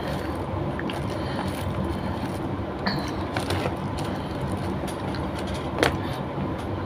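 Eating with bare hands: fingers scooping rice from a glass dish and bringing it to the mouth, with a few small clicks and one sharper click near the end, over a steady low background hum.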